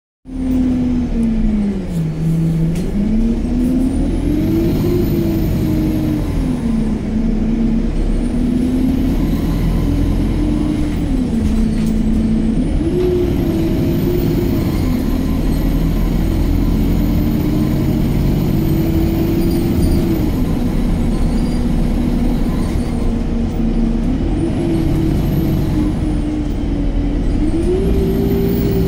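Cabin sound of an Alexander Dennis Enviro 200 MMC single-deck diesel bus under way. Its engine and transmission whine rises in pitch and then drops back several times, the pattern of the bus accelerating through its gears, over a steady low rumble.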